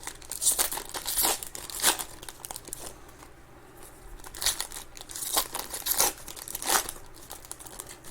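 Foil trading-card pack wrappers crinkling and tearing as they are handled, in two spells of rustling: one in the first two seconds and another from about four to seven seconds in.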